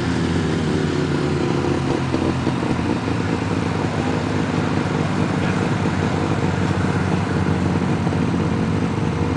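Mazda pickup truck's engine held at high revs, fairly steady, while its wheels spin on snow doing donuts.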